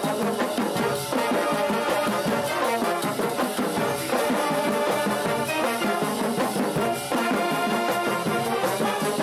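High school marching band playing a stand tune in the bleachers: brass, including sousaphone and trumpets, over marching bass drums, at a steady loud level.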